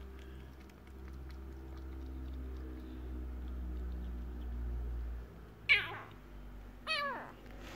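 Kitten lapping milk with faint ticks over a low steady hum that stops about five seconds in, then two meows near the end, each falling in pitch.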